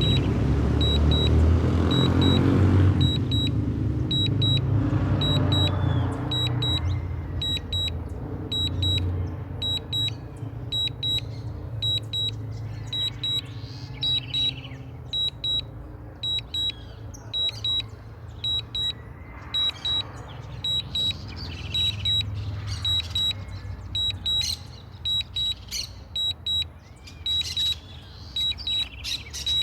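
Drone remote controller beeping: short high double beeps repeat about once a second, the warning tone of a lost signal and return-to-home. Underneath is a low rumble, loudest in the first few seconds.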